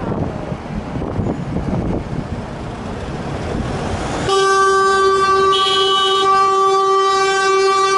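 Road traffic and wind rumble. About four seconds in, a loud, steady horn blast starts suddenly and is held on one pitch to the end.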